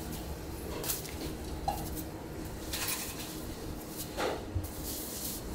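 Pizza dough being tossed and spun by hand: a few soft slaps and swishes as the dough is flung and caught on gloved hands, over a low background hum.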